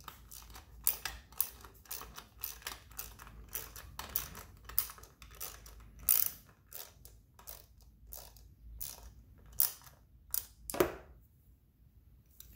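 Socket ratchet clicking in short irregular runs as a bolt on the radiator mount is worked loose. A single louder click comes a little before the end, then the clicking stops.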